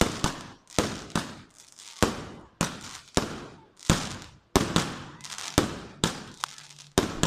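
Aerial fireworks bursting overhead: a rapid, irregular run of sharp bangs, roughly two a second, each dying away quickly.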